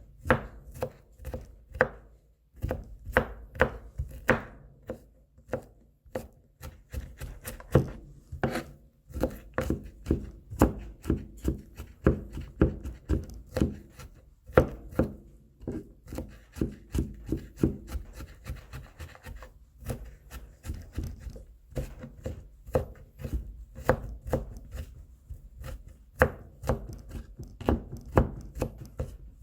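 Knife mincing garlic on a cutting board: rapid, irregular chopping strokes, a few per second, with a few short pauses.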